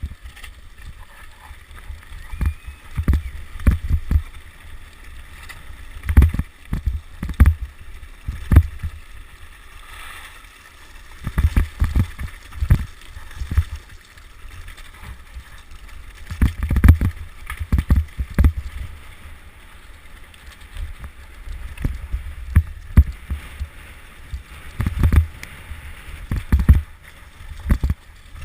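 A mountain bike riding down a rough course during a mass-start downhill race, with irregular thumps and rattles and a steady low rumble of wind buffeting the microphone.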